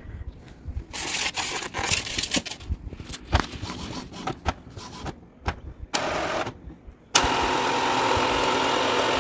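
Epson WorkForce WF-2850 inkjet printer starting its initial ink-charging cycle: a run of irregular clicks and knocks, then about seven seconds in a steady motor whir that runs on for about two seconds.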